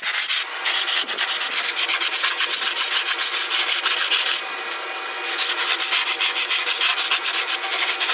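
Sandpaper scrubbed rapidly back and forth by hand over the metal mating flange of a 1994 Toyota 4Runner's differential third member, dressing the face clean for an RTV seal. The strokes ease off briefly about halfway through.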